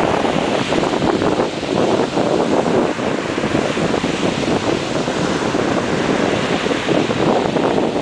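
Sea waves breaking and washing up a gravelly sand beach in a choppy, whitecapped sea, a steady surf noise. Wind buffets the microphone.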